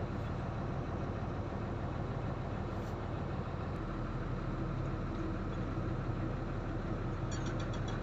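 Heavy diesel engine idling steadily. A fast, regular high-pitched ticking joins it near the end.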